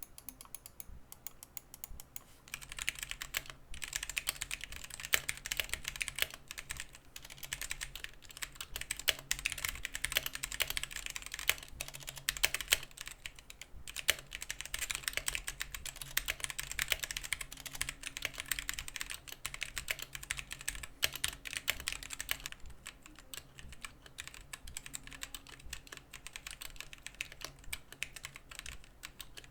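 Typing on a Gamakay K61 60% mechanical keyboard with Gateron Yellow linear switches and thin ABS double-shot keycaps: a rapid, continuous run of keystroke clacks that starts sparse, becomes dense after a couple of seconds, and eases to lighter typing about two-thirds of the way through.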